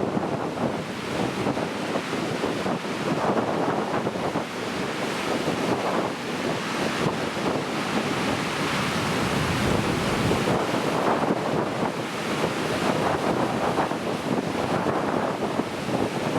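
Heavy typhoon swell surging and breaking on the coast in a continuous rush, with strong wind buffeting the microphone.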